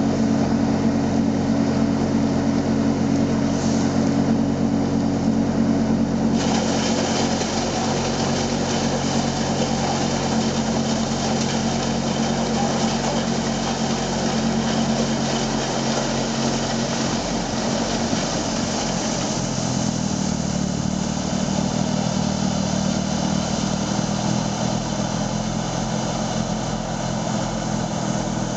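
Vohl VL-350 loader-mounted snow blower and its 350 hp John Deere engine running hard, with the wheel loader's engine under it. About six seconds in a loud rushing hiss sets in as the blower begins cutting into the snowbank and throwing snow, and about two-thirds of the way through the engine note drops slightly under the load.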